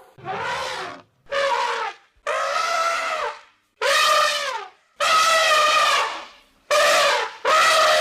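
Elephant trumpeting: a string of about seven short trumpet calls, each up to about a second and a half long, with brief gaps between them.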